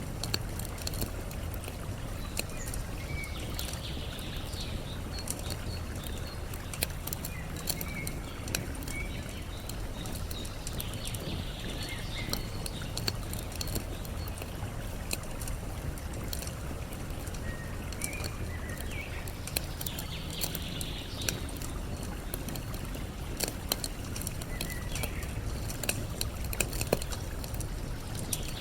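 Campfire crackling with frequent small pops over a steady low rush of flowing water, with brief faint bird chirps every few seconds.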